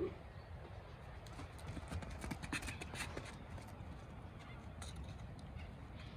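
A ram's hooves stepping on hard dirt ground: a scatter of light clicks through the first half, with one more near the end, over a low steady rumble.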